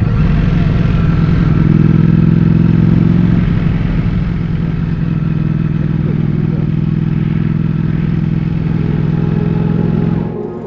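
Ducati Streetfighter V4's 1,103 cc V4 engine running at a steady pitch, a little louder in the first few seconds and dropping away just before the end.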